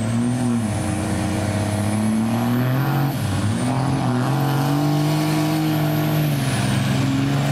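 Dodge Ram pickup's Cummins straight-six diesel running hard under full load as it pulls a weight-transfer sled. The engine note climbs, dips briefly about three seconds in, holds, then eases off near the end. A faint high whistle rises and falls with the engine.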